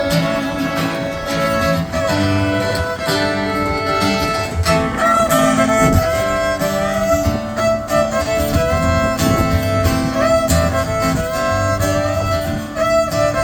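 Instrumental break in a country-style song: a fiddle plays the lead over guitar accompaniment, with no singing.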